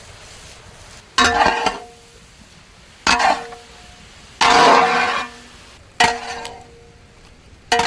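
Food being stirred in a cooking pot with a wooden spoon: five separate scraping strokes, each leaving a brief ringing tone from the pot.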